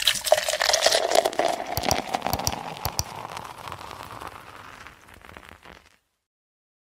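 Dense crackling, fizzing sound effect under the outro animation, many small crackles together, fading away steadily and stopping about six seconds in.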